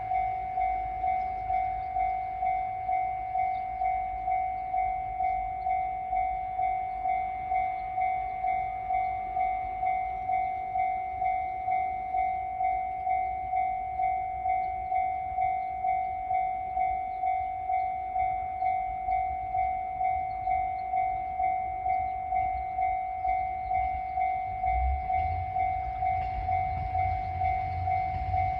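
Japanese railway level crossing's electronic warning bell ringing in an even, rapid pulse, the signal that a train is approaching. In the last few seconds the low rumble of the approaching KiHa 110-series diesel railcar grows beneath it.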